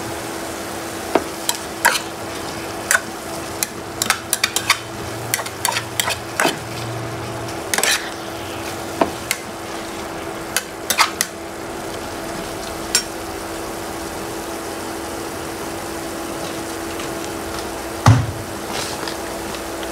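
Pickled rau móp stems and garlic sizzling in a pan while a metal spatula stirs them, with a run of clicks and scrapes of the spatula against the pan for the first dozen seconds and a single louder knock near the end. A steady hum runs underneath.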